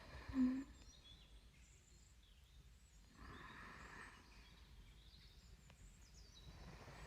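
A woman's soft breathing close to the microphone: a slow breath about three seconds in and another near the end, after a whispered last word at the start.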